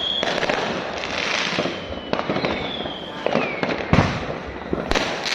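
Fireworks going off continuously: dense crackling with repeated sharp bangs, the loudest about four seconds in. A thin whistle falls in pitch about two and a half seconds in.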